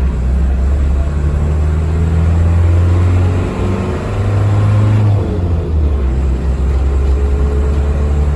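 Motor vehicle engine running with a steady low drone, its pitch shifting up and down around the middle as it changes speed.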